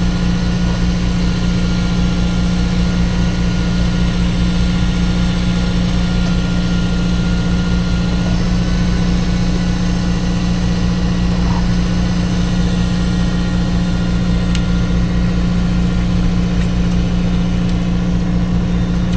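A fishing boat's engine running steadily: a loud, even low drone with a fast regular pulse.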